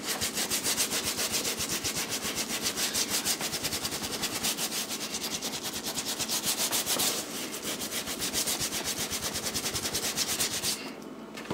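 Stiff hard-bristle brush scrubbing rapidly back and forth along an Air Jordan 3 midsole, scouring off paint softened by a midsole paint stripper. The scrubbing stops abruptly shortly before the end.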